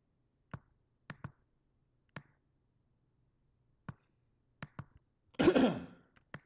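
Computer mouse button clicking, single clicks and quick pairs a second or so apart, while text is selected on screen. Near the end there is a brief, louder noise of unclear source.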